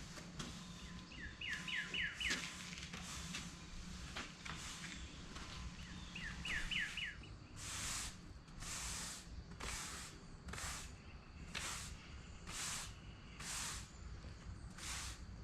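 A broom sweeping dry joint sand across pavers in repeated strokes, settling into about one stroke a second in the second half. A bird twice gives a quick run of four falling chirps.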